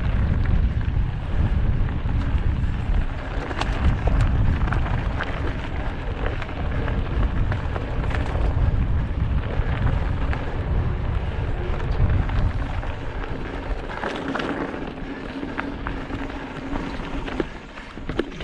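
Wind buffeting the microphone as a mountain bike descends a rocky dirt singletrack, with tyres crunching over loose rock and the bike clicking and rattling over bumps. The low wind rumble eases about fourteen seconds in.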